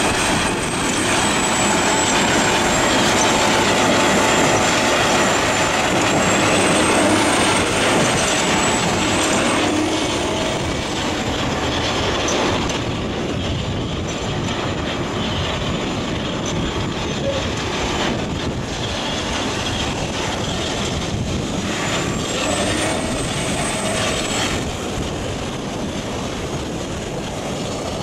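Morbark HT1684 Predator tracked slow-speed shredder running and shredding waste wood as an excavator feeds it: a loud, steady mass of diesel machinery noise with a thin high whine that wavers and comes and goes.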